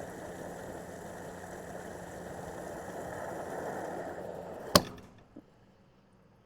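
Gas pump nozzle dispensing fuel with a steady rushing hiss and hum. About three-quarters of the way through, a sharp, loud click stops the flow, and a faint click follows.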